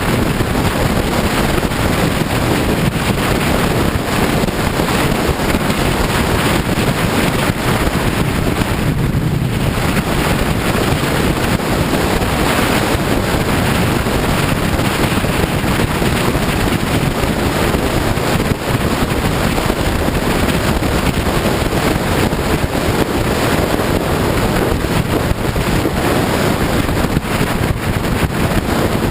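Steady wind rushing over the microphone of a camera riding on a sport bike at road speed, with the motorcycle's running noise blended into it.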